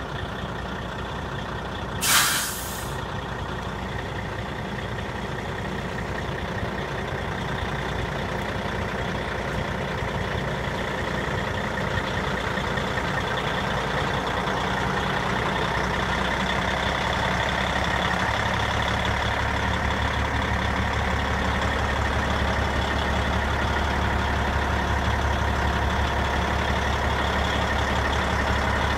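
Caterpillar C-15 inline-six diesel of a 2006 Peterbilt 379 idling steadily, with a short hiss of air about two seconds in. The engine grows slowly louder, with a deeper rumble coming in from about two-thirds of the way through.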